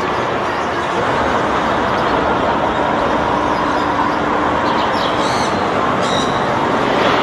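Hong Kong double-decker tram running along its street rails, over a steady wash of city traffic noise.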